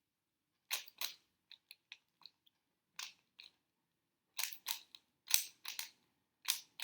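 Rubik's cube being scrambled: quick plastic clacks of its layers turning, singly and in fast clusters with short pauses between.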